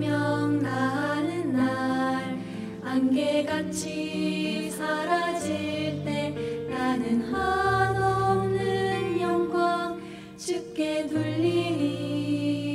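Four women's voices singing a slow Korean gospel song together over held low accompaniment chords.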